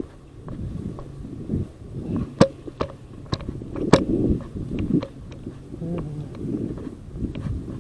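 Rustling, handling noise with several sharp clicks; the loudest clicks fall between about two and four seconds in.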